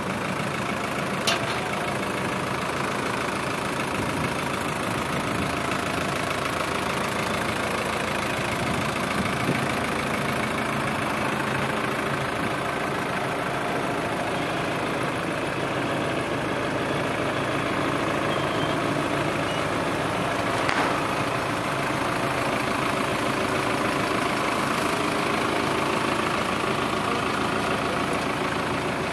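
Farm tractor's diesel engine running steadily at idle, with one sharp click about a second in.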